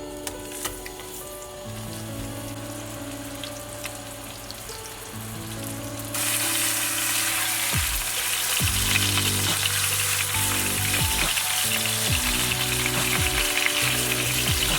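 Frying in a hot pan: a loud sizzle starts suddenly about six seconds in and runs on steadily, over background music.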